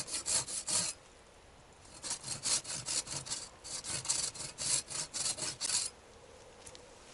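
Hand saw cutting into wood in quick back-and-forth strokes. A short run stops about a second in, and after a pause of about a second a longer run of roughly four seconds follows. The saw is making shallow cuts on either side of the piece, to be split out with an axe for a flat spot.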